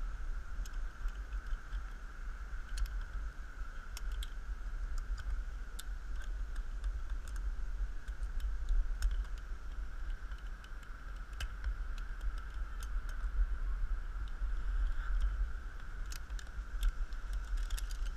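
Zip-line trolley pulley rolling along a steel cable: a steady whir, with scattered light clicks and rattles from the hardware and wind rumbling on the microphone.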